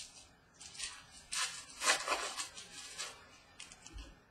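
Trading cards being handled: a quick series of papery swishes and rustles as cards slide over one another while a pack is thumbed through.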